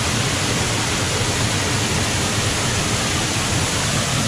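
Waterfall heard from right behind its falling curtain: a dense, steady rush of water pouring down and splashing onto the rocks.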